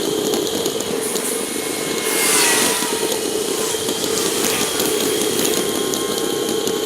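Steady wind and road noise from a bicycle ride picked up by a GoPro Hero 3. About two seconds in, a brief rise in hiss comes with tones that slide down in pitch, like a vehicle going past.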